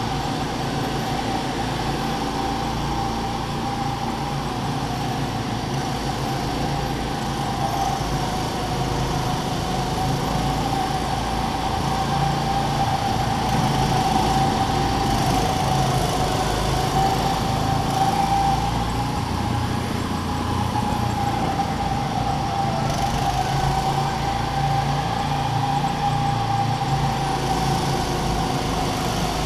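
Go-kart motor running steadily while driving laps, heard from on board: a steady whine that drifts slightly up and down in pitch over a low rumble.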